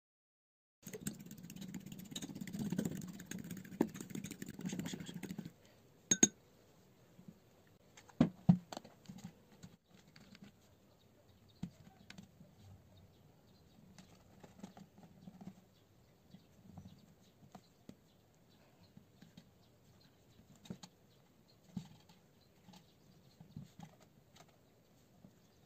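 Kitchen handling sounds. About a second in comes a few seconds of steady rustling noise that stops abruptly. Then there is a sharp knock with a brief ring and two loud knocks in quick succession, followed by faint scattered taps and rubs of fingers pressing pizza dough against a metal baking tray.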